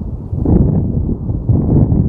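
Strong, gusty wind buffeting the microphone, a low rumbling noise that swells about half a second in and again near the end.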